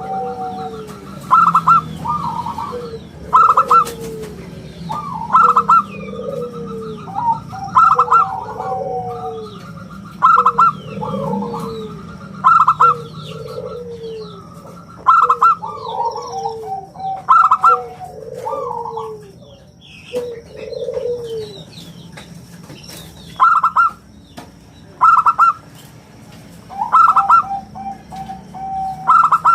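Zebra dove (perkutut) cooing, repeating its song phrase about every two seconds with a short pause around two-thirds of the way through. Small birds chirp faintly in the background.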